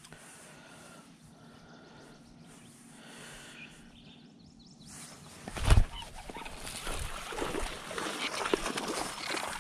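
Quiet outdoor ambience with a few faint bird calls, then a sudden loud knock a little past halfway, followed by clattering and rustling handling noise as the camera is moved about on the boat.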